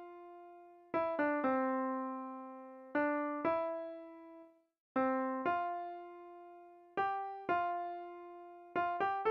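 Solo keyboard music in a piano or electric-piano sound: a slow melody of single struck notes, each left to ring and fade. The notes come in pairs spaced about two seconds apart, with quick runs of three or four notes near the start and near the end.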